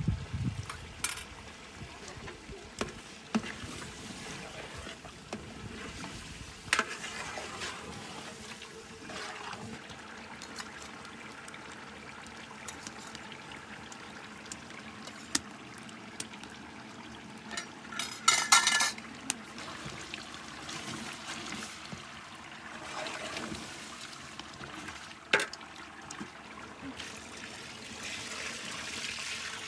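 Metal spoon and ladle clinking and scraping against a large aluminium cooking pot and a steel bowl while froth is skimmed off a stew, with a brief louder ringing sound about two-thirds in. Near the end, water starts pouring from a plastic jerrycan into the pot.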